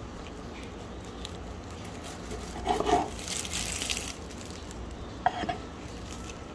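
Serrated bread knife sawing through a loaf of bread on a wooden cutting board: a knock about three seconds in, a short raspy stroke of the blade through the crust just after, and a sharp clack a little past five seconds as the knife is laid down on the board.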